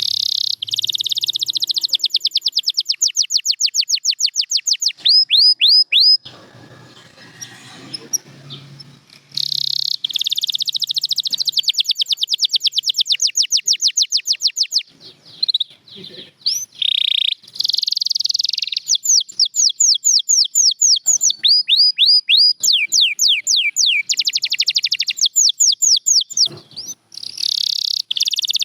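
Domestic canary singing: long trills of rapidly repeated high notes, the pace and note shape changing from phrase to phrase, with a pause of about three seconds some six seconds in.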